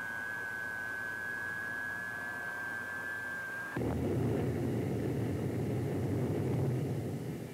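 Westinghouse J34 turbojet of a McDonnell F2H Banshee being started: a steady high whine as it spins up, then, about four seconds in, it lights off with a sudden loud, deep rush of noise that keeps running.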